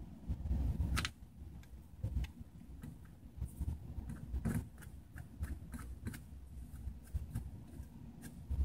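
Scattered light clicks and taps from a hand-held heat-spreader lid and tool against a PS3 motherboard, over low handling rumble, with one sharper click about a second in.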